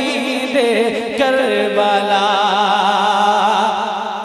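Male voice singing a manqabat unaccompanied through a PA system, drawing out long, wavering notes with vibrato after the line 'wo shaheed-e-Karbala'.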